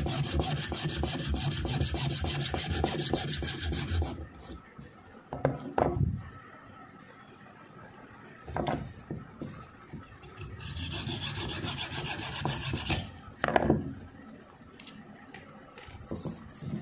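Hacksaw cutting through an LED TV backlight strip held against a block, in two bouts of quick rasping strokes, the first lasting about four seconds and the second about two, with a few knocks and handling sounds between them.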